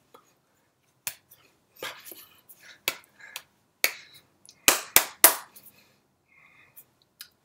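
Hands clapping and slapping together during sign language: a run of sharp claps and smacks, the three loudest in quick succession about five seconds in, with soft breathy mouth sounds between.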